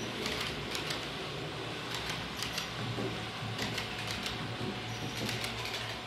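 Model Railjet train running on a layout's track: a steady low hum with irregular clicking of the wheels over rail joints and points.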